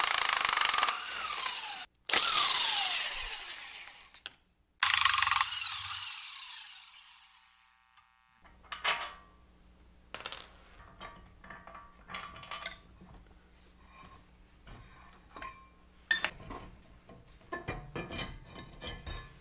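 Loud clanging and ringing of steel axle parts for several seconds, the ringing tones falling away, then cut off abruptly about eight seconds in. After that, quieter scattered clicks and taps of hands and metal on the hub and brake rotor.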